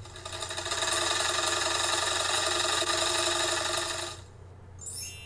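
Sewing machine stitching at a fast, steady rate, which stops abruptly about four seconds in. Near the end a bright chime rings out with a quick high sweep.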